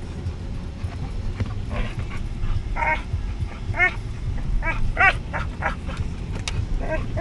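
Bearded collie puppy making a string of short, high whines and yips, several rising and falling in pitch, over the low rumble of the moving car.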